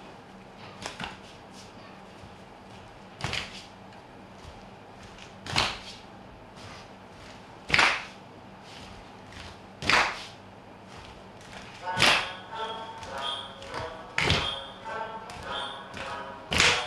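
Sharp percussive slaps struck in a steady slow rhythm, about one every two seconds, eight in all. Over the last few seconds, voices singing held notes join in.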